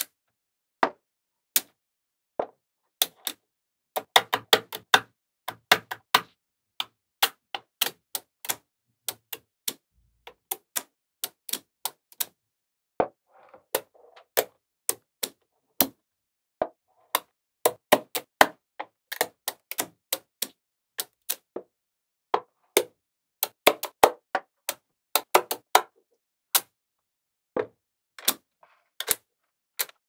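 Small magnetic balls clicking as slabs of them are snapped onto a magnetic-ball model. The clicks are sharp and irregular, with silence between, and come in quick clusters about four seconds in and again about eighteen and twenty-four seconds in.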